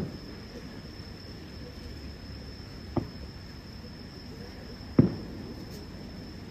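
Distant fireworks bursting: three sharp bangs, one at the start, one about three seconds in and the loudest about two seconds later. Behind them runs a steady high-pitched insect trill.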